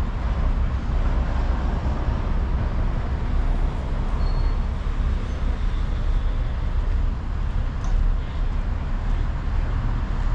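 Steady road traffic noise: a continuous low rumble of passing cars and buses.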